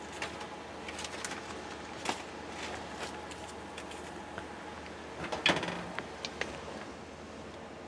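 Kitchen work at a pot of boiling soup while dry spaghetti noodles go in: scattered light clicks and knocks, with a louder clatter about five and a half seconds in, over a steady background hum.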